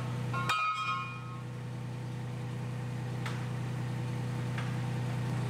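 Forklift engine idling with a steady hum. A short metallic ring sounds about half a second in, and two faint clicks follow later.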